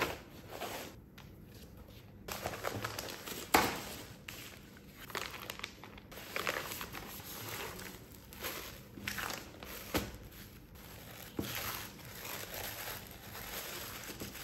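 Plastic packaging bags and paper wrapping crinkling and rustling in irregular bursts as a cycling jersey is handled and lifted out, with a few sharper snaps.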